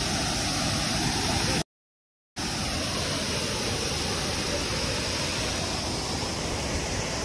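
Steady rushing noise, broken by a brief complete dropout about a second and a half in.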